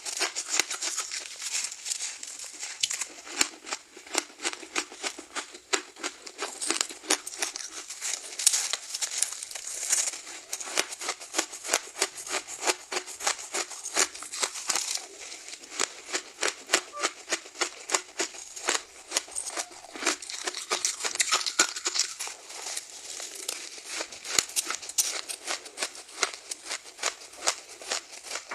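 Soft frozen ice being bitten and crunched: a dense, continuous run of crisp crackling crunches, several a second.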